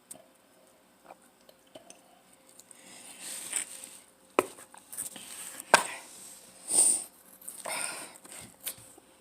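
Close-up eating sounds: biting and chewing pizza, with a couple of sharp clicks and noisy, crackly bursts.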